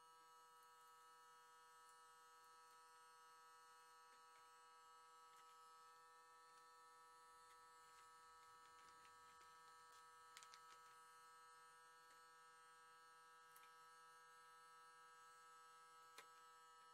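Near silence, with a faint steady electric hum made of several even whining tones, as from the small motor of a rotating display turntable. A few faint ticks come about ten seconds in.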